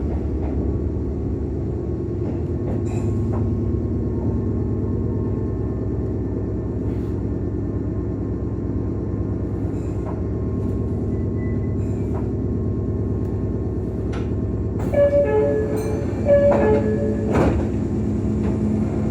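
Steady low mechanical drone inside a Meitetsu 6000 series electric train car, typical of its under-floor air compressor running. About 15 seconds in, a two-tone high-low door chime sounds twice, with a few sharp clunks.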